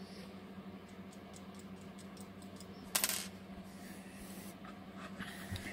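Steady low hum of the motorhome's heater, with light clicks and taps from handling the soldering iron and plastic, and one short burst of noise about three seconds in.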